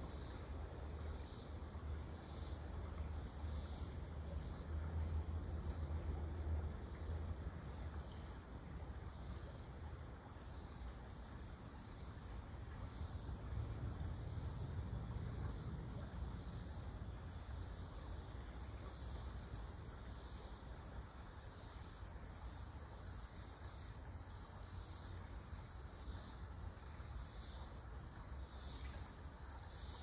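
Insects calling in a chorus: a steady high-pitched buzz with a pulsing chirp repeating about twice a second. Faint stream water and a low rumble lie underneath.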